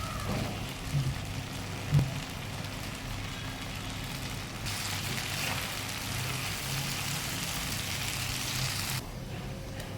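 Chicken frying in oil in a pan, sizzling over a steady low hum, with two sharp knocks about a second apart near the start. The sizzle grows louder about halfway through and then cuts off abruptly.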